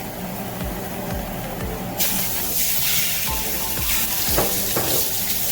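Raw chicken pieces going into a very hot skillet and starting to sizzle as they sear, with the sizzle starting suddenly about two seconds in and continuing steadily. Background music with a steady beat plays underneath.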